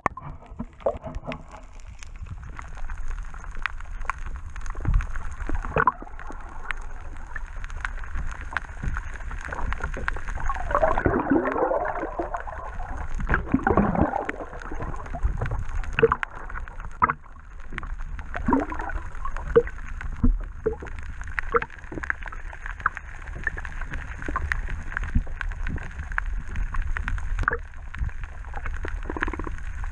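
Water gurgling and sloshing, heard underwater and muffled, with scattered clicks and knocks. A louder wavering gurgle comes about ten to fourteen seconds in.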